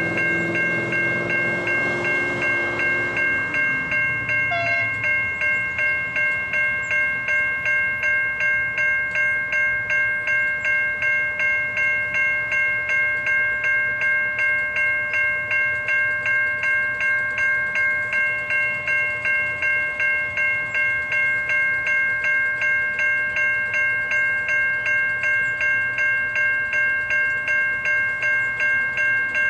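Level crossing warning bell ringing steadily, about two strikes a second, sounding while the crossing's lights flash and the boom gates are down for a train. In the first few seconds a low drone from a train falls in pitch and fades away under the bell.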